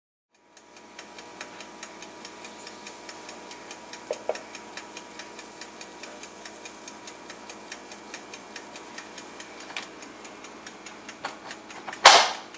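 Steady ticking, about three ticks a second, over a faint hum. Just after twelve seconds comes a loud clack as the lid of an electric waffle maker is shut.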